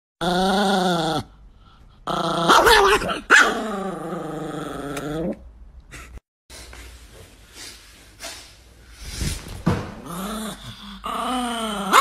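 A dog growling and giving drawn-out, wavering barks in three bouts, with quieter sounds between them.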